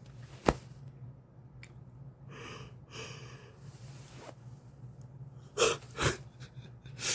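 A sharp click about half a second in, then a long breathy yawn, and two short, sharp snorts about half a second apart near the end.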